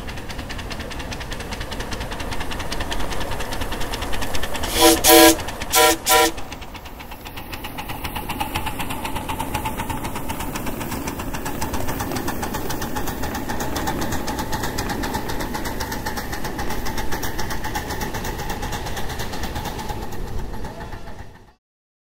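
Live-steam scale-model steam locomotive working hard up a grade, its exhaust chuffing in a fast, steady beat. About five seconds in, the whistle gives four short toots in two pairs. The sound cuts off suddenly near the end.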